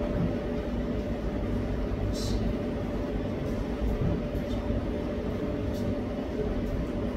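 Steady low rumble with a faint hum, like room or fan noise. There is a brief hiss about two seconds in.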